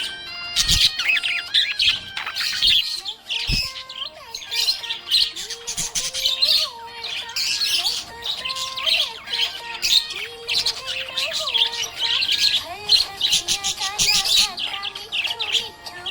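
Budgerigars chirping and warbling in a continuous, rapid chatter of short high chirps.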